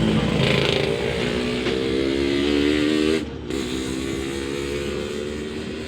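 An engine running, its pitch rising slightly, then dropping about three seconds in.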